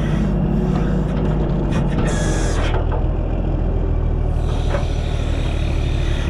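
Engine of a self-loading log truck running steadily while loading logs, with a short hiss about two seconds in.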